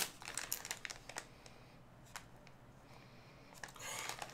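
Foil snack wrapper crinkling and crackling in someone's hands as it is opened. There are sharp crackles in the first second and a longer crinkle near the end.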